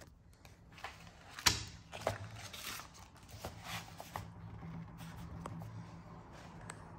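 Paper catalogue pages being handled and rustled, with scattered clicks and a sharp knock about a second and a half in.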